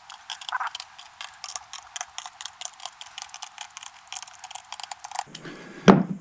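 Small hand ratchet clicking rapidly and unevenly as the nuts on the busbars of a LiFePO4 cell pack are tightened, then one loud knock near the end.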